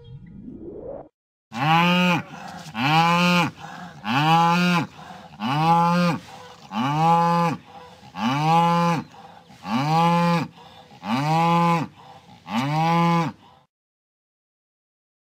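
A cow mooing eight times in a row, each moo about a second long and rising then falling in pitch, the same call repeated about every second and a half. A short rising glide comes just before the first moo.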